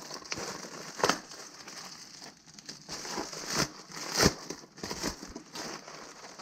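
A package being opened by hand: irregular crinkling and rustling of packaging, with sharper crackles about a second in and twice more between three and a half and four and a half seconds in.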